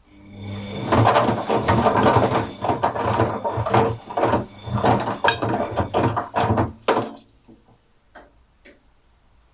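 Atlant 50U101 washing machine turning its drum in a wash cycle: a motor hum with uneven sloshing and tumbling that stops suddenly about seven seconds in, followed by a couple of faint clicks.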